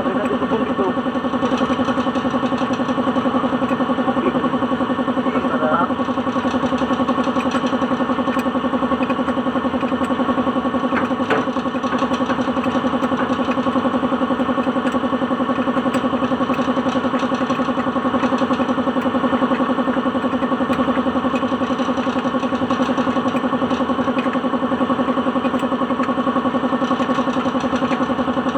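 Suzuki DA16 engine idling steadily.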